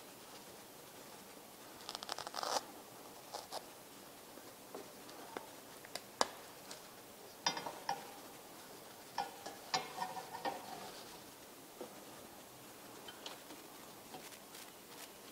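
Quiet, scattered handling sounds: short rasps of a zipper on a Jeep's padded fabric sport bar cover being worked, with light clicks and scratches as a black plastic bracket is fitted under it. A burst of rasping comes about two seconds in.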